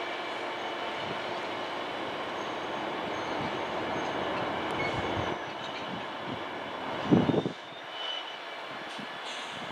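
Loaded aggregate wagons of a freight train rolling slowly past behind a Class 66 diesel, with a wheel rumble and a thin high brake squeal as the train slows for a signal. The rumble eases about five seconds in, and a short loud low thud comes about seven seconds in.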